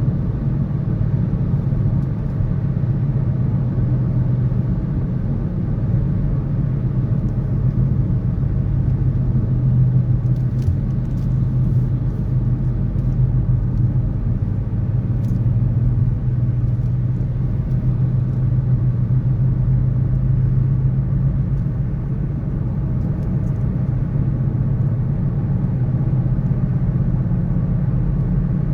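Steady low rumble of city road traffic, a continuous wash of car noise with no single vehicle standing out.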